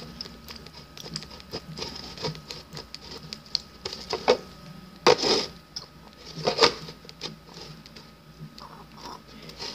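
Handling noise close to the microphone: irregular rustling, clicks and soft knocks as a toy bottle is held to a baby doll's mouth, with two louder knocks about five and six and a half seconds in.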